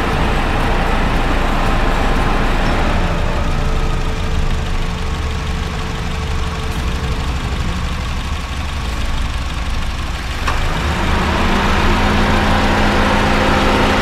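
Honda Fit GD3 engine idling with the air-conditioning compressor cycled on and off. About ten seconds in there is a click, and the running note rises and gets a little louder as the compressor clutch engages. The compressor whine that came from low refrigerant has gone quiet.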